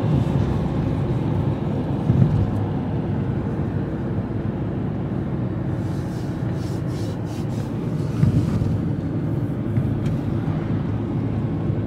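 Steady low road and engine rumble of a moving vehicle, heard from inside its cabin.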